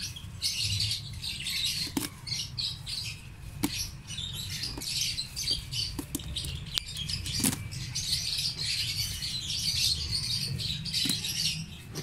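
A flock of small birds chirping and twittering continuously, with a few sharp clicks here and there.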